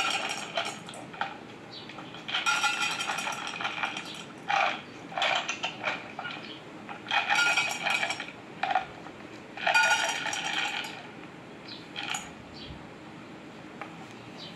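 Dry pet food poured into stainless steel bowls, rattling and ringing on the metal in several separate pours of up to about a second each, heard through a television's speakers.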